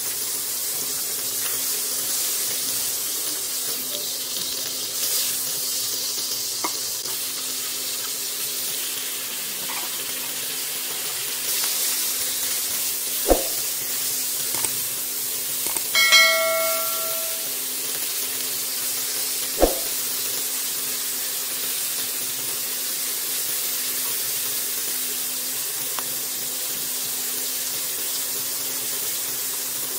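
Sausage slices frying in oil in a wok, a steady sizzling hiss. A couple of sharp taps come as they are stirred with a spatula, and a brief ringing tone sounds about halfway through.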